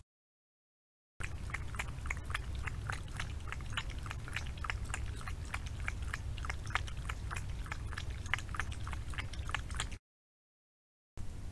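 A fox cub chewing food at close range: a quick, irregular run of crisp crunches over a low steady hum. It is silent for about the first second and again for about a second near the end.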